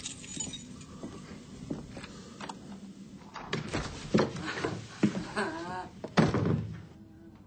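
Wooden door creaking and thudding: several knocks over a few seconds, then the loudest thud about six seconds in.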